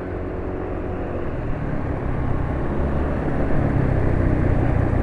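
Riding noise from a Yamaha scooter moving in traffic: a steady low rumble of engine and wind on the microphone, getting a little louder over the first few seconds.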